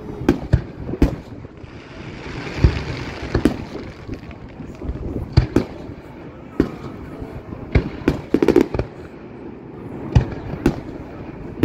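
Fireworks display: a dozen or more sharp bangs of shells bursting at irregular intervals, with a brief hiss about two to three seconds in and a quick cluster of bangs around eight to nine seconds.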